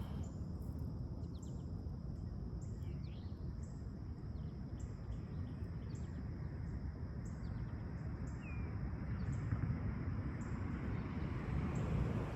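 Outdoor ambience: a steady low rumble under a constant high insect hum, with short high chirps repeating about once or twice a second and a few faint bird chirps.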